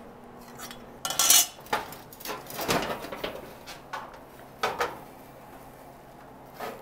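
Round steel planishing-hammer dies clinking and knocking against each other and against sheet metal as they are picked out and handled: a string of irregular metallic clinks, most of them in the first five seconds.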